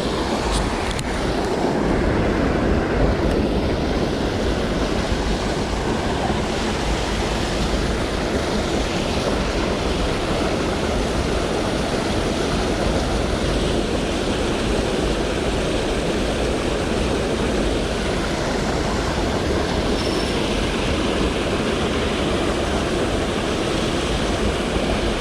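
Jungle stream rushing over a small waterfall: a steady, unbroken roar of falling water.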